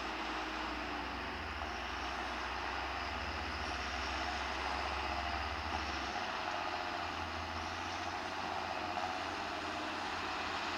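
John Deere tractor engine running steadily while working a field, with a low hum that shifts a little about six seconds in.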